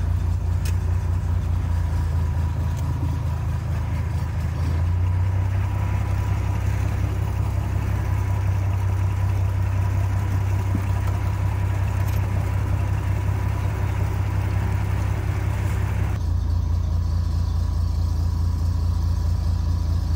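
Boat engine running steadily with a deep hum. Its note shifts about five seconds in and again about sixteen seconds in.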